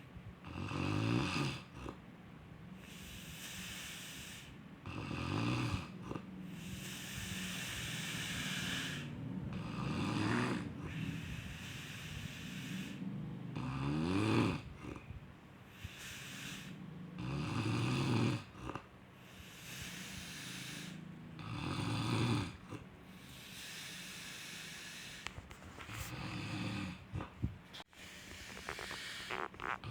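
Snoring: a rough, rattling snore on each in-breath, about every four seconds, with a breathy hiss on the out-breath between them.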